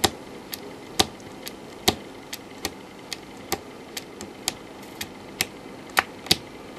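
Small toggle switch flicked back and forth by hand, giving sharp clicks two to three times a second, unevenly spaced. Each flip single-steps the Z80 CPU's clock by one cycle.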